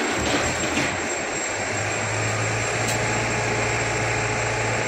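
Hydra pick-and-carry mobile crane's diesel engine running steadily as the telescopic boom is raised, with a deeper steady hum coming in about two seconds in.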